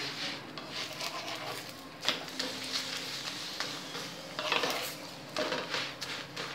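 A flat spatula scraping and pressing a paratha around a hot tawa, with several scraping strokes over a steady sizzle of oil frying under the bread.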